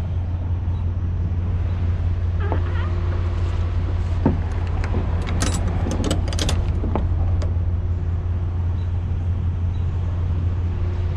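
Semi-truck's diesel engine running steadily with an even low hum, and a few short clicks and knocks about a third of the way through.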